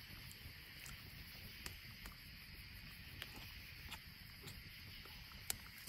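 Faint outdoor background: a steady low rumble and a high hiss, with scattered small clicks and one sharper click about five and a half seconds in.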